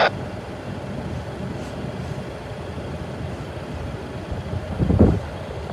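Low, steady rumble of a distant diesel-hauled freight train approaching, with a brief louder surge of rumble about five seconds in.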